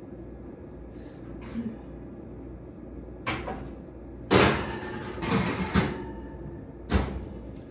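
Metal baking pan clattering down onto the grates of a gas stove, the loudest knock about four seconds in, followed by more knocks and clatter, then a sharp bang of the oven door shutting near the end.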